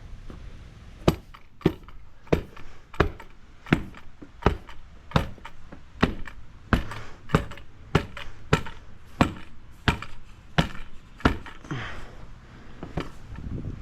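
Hand tamper striking concrete stamp mats pressed into fresh concrete: a steady run of sharp thuds, about three every two seconds, easing off near the end.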